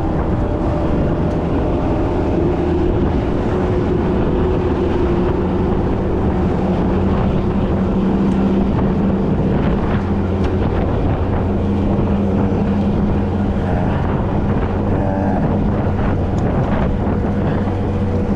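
Motor vehicle engine running steadily with a low, even hum, mixed with wind buffeting the microphone.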